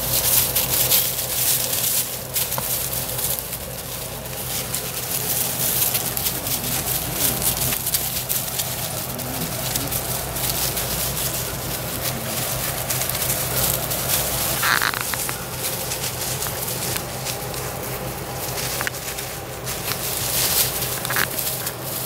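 Weimaraner puppies scampering and wrestling over dry leaves and wood mulch: a steady crackle and rustle of leaves under their paws, with one short high squeak about fifteen seconds in.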